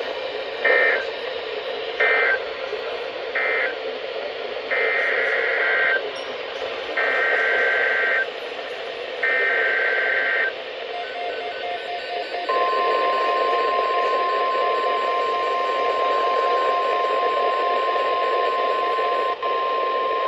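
NOAA Weather Radio Emergency Alert System signalling over radio hiss: three short end-of-message data bursts, then three longer SAME header bursts, each a warbling pair of high tones. From a little past halfway, the steady 1050 Hz weather radio alert tone sounds, announcing a flood watch.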